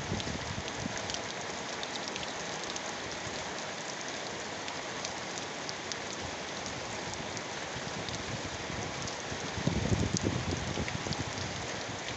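Heavy rain falling steadily, with many sharp little drop ticks over an even hiss. About ten seconds in, a louder low gust of wind swells for about a second and a half.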